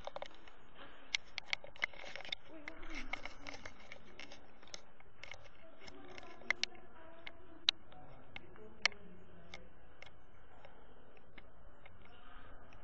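Scattered sharp clicks and taps of hands handling a 360 camera close to its microphone, a cluster in the first two seconds or so and a few louder single clicks later on.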